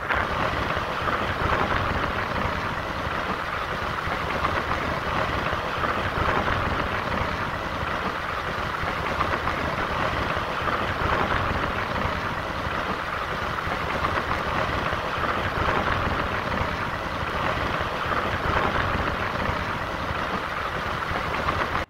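Steady rush of wind and road noise from a vehicle travelling at speed on a paved road, with a constant engine rumble underneath.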